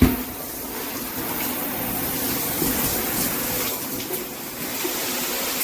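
Proud Bird high-pressure handheld shower head spraying water in a steady rush. There is a short knock at the very start.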